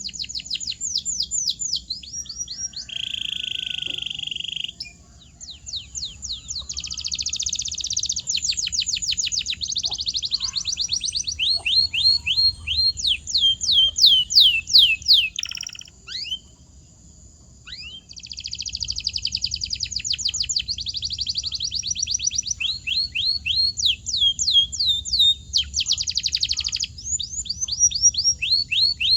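Domestic canary singing a long rolling song: fast runs of repeated falling whistled notes, several a second, mixed with short buzzy trills. There is a pause of about two seconds in the middle.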